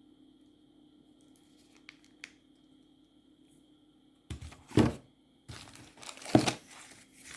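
Crinkling and rustling of fireworks and their packaging being handled and pulled from the selection box, in two spells starting about four seconds in and about five and a half seconds in, over a faint steady hum.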